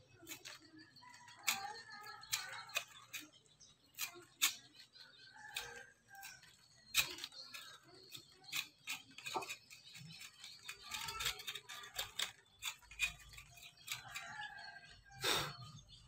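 Knife cutting and scraping the fibrous husk of a sprouted coconut: irregular crisp scrapes and snicks, the loudest near the end.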